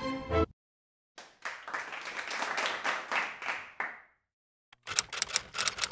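Clapping and applause lasting about three seconds and fading out, after music cuts off. A rapid run of sharp clacks starts near the end.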